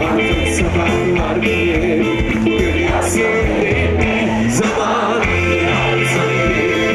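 Live rock band playing, with a male lead vocal over drums, electric bass and electric guitar.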